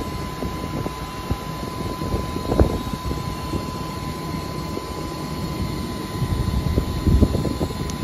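Steady mechanical drone of an LG Multi V VRF air-conditioning unit running, with a thin steady whine over it. Two brief knocks, a few seconds apart, from hands handling the cable and board.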